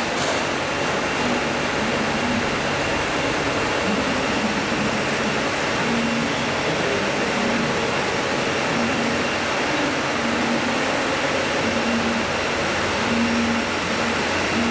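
CNC internal gear teeth generator running, a steady whirring machine noise, with a short low hum coming and going about every second.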